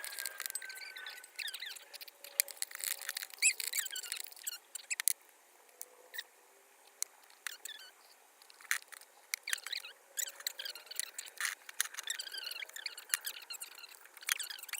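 Sticky homemade glue slime being worked with a spoon in a bowl: irregular wet clicks, pops and squeaky squelches, with a quieter stretch about midway.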